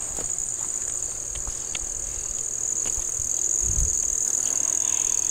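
Steady high-pitched insect chorus, a constant shrill drone, with a short low bump a little before four seconds in.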